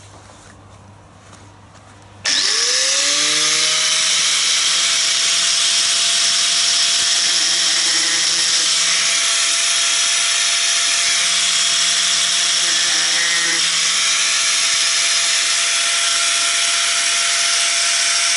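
Electric disc grinder switched on about two seconds in, its whine rising quickly as it spins up and then holding steady at full speed over a loud hiss, grinding grooves into a soft Tenjo nagura sharpening stone.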